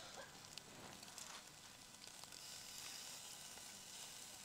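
Marinated meat sizzling faintly and steadily on a wire mesh grill over hot charcoal, with a few light ticks.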